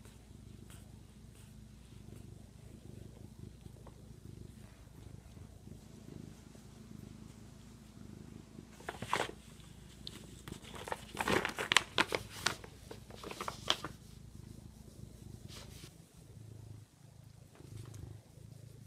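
Domestic cat purring steadily. Partway through, several seconds of loud crinkling and rustling from a foil-lined paper bag as the cat paws at it.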